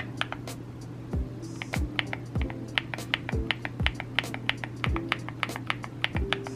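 Typing on a CIDOO V68 Alice-layout mechanical keyboard fitted with Osume Sakura linear switches: a quick, uneven run of key clacks, several a second, over background music with a steady beat.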